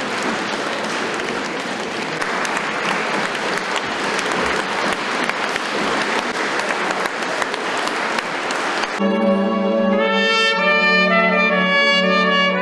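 Audience applauding, cut off suddenly about nine seconds in by an orchestra playing. A solo trumpet carries the melody over held low notes.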